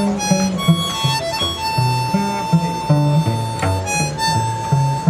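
Cello and harmonica duo improvising: the cello plays a walking bass line of short, even low notes while the harmonica holds long high notes over it.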